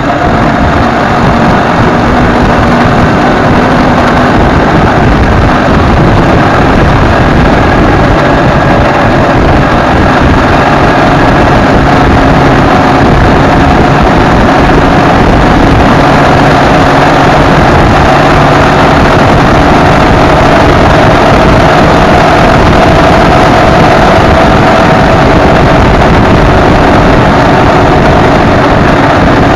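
Zündapp KS 750 sidecar motorcycle's flat-twin engine running steadily at full throttle at road speed under a full load, with heavy wind noise on the microphone.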